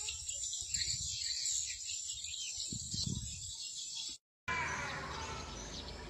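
High, rapid twittering chirps of swiftlets over a low rumble. The sound cuts out abruptly about four seconds in, and a different recording follows with lower gliding calls.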